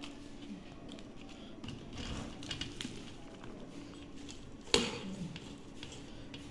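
Wet shredded banana stem being handled by hand in a steel bowl: soft, scattered rustling and clicking of the strips, with one sharp knock a little past the middle.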